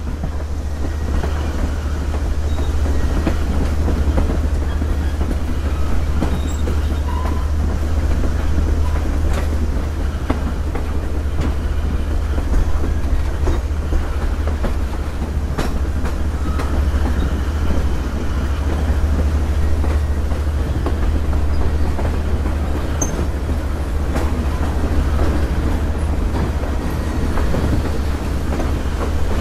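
Passenger train rolling along behind Southern 2-8-2 steam locomotive 4501, heard from an open vestibule between cars: a steady rumble of wheels on the rails over a strong low rumble, with a few scattered sharp clicks.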